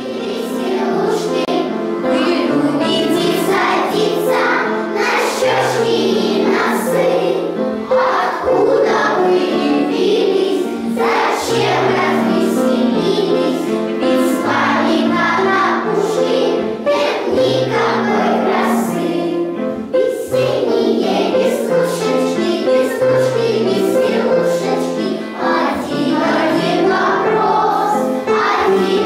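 A choir of young children singing a song together with instrumental accompaniment, starting suddenly at the outset.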